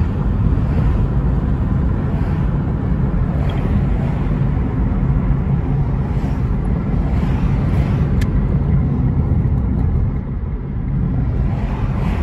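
Car driving along, heard from inside the cabin: a steady low rumble of road and engine noise.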